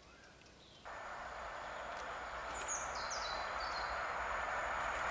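Rolling noise of an approaching electric passenger train. It comes in abruptly about a second in and grows steadily louder, with birds chirping over it.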